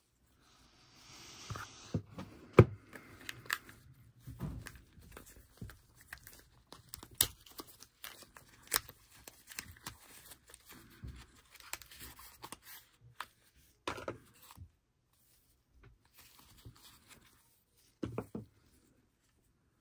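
Unboxing handling noise: paper rustling and crinkling as a folded instruction leaflet is taken from the metal tin and unfolded, with scattered clicks and taps as the tin and the small USB device are handled by gloved hands.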